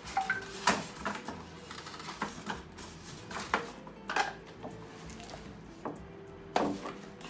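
Unpacking noise: a plastic-wrapped coffee machine and its packing being pulled out of a cardboard box, then its power cord and plug handled. It comes as irregular rustles, clicks and knocks, the loudest about a second in and near the end.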